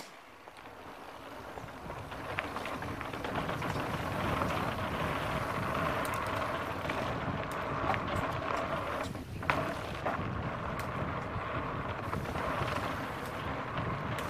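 Mountain bike rolling fast down a dirt trail: wind rushing over the microphone with tyre noise and the bike's rattle, building over the first few seconds as speed picks up, with a few sharp knocks along the way.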